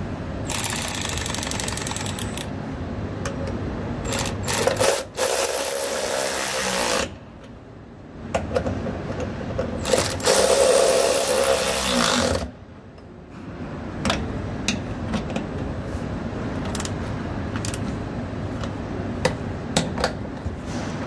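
Cordless powered ratchet driving the mounting bolts of a train's pneumatic valve. It runs in two long stretches of several seconds each with a short break between them, then gives way to a lower steady sound with scattered sharp clicks.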